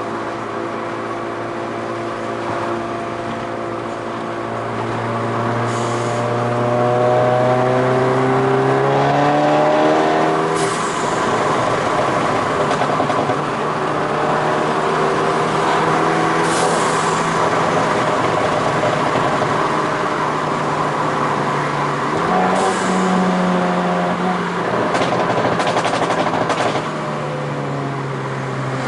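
Seat Ibiza Cupra 1.4 TSI four-cylinder engine and exhaust on a Stage 2+ tune, running under load; its pitch rises over the first ten seconds, holds, steps up once and drops near the end. Sharp exhaust pops and crackles come every few seconds, with a cluster of them near the end.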